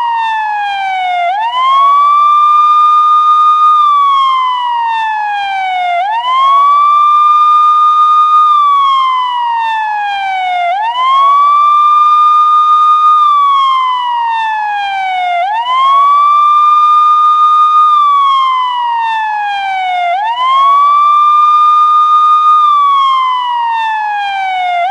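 Police car siren sounding in wail mode: the tone rises quickly, holds high for a moment, then slides slowly down, repeating about every four to five seconds.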